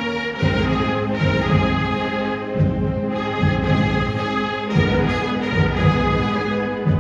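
A student band playing brass-led music: held brass chords over a steady drum beat.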